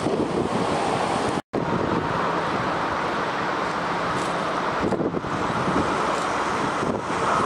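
Jet airliners' engine noise, a steady rushing roar mixed with wind buffeting the microphone. After a brief dropout about a second and a half in, it comes from an Airbus A330 on final approach with its landing gear down.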